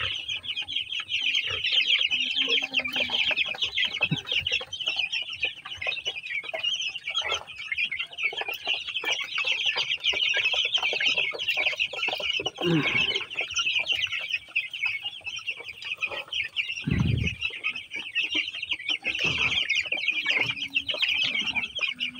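A crowd of 12-day-old broiler chicks peeping constantly, a dense high chorus of rapid cheeps, with a couple of dull low thumps about halfway through and again a few seconds later.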